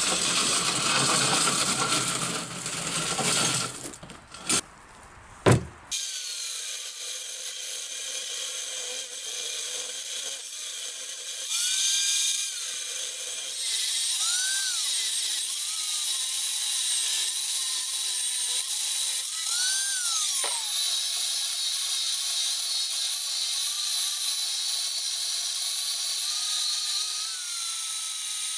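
Large angle grinder with a cut-off disc cutting into a steel railway rail: a steady high whine whose pitch sags several times as the disc is pressed into the cut. This is preceded by a few seconds of clattering and scraping with two sharp knocks, as a wheeled steel table is rolled over gravel.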